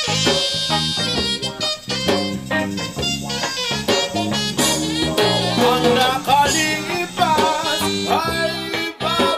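Background music: a song with a steady beat and a sliding, bending melody line over guitar-like accompaniment.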